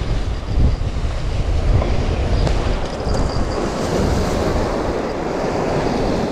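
Sea surf washing against a rocky shore, with a crosswind buffeting the microphone.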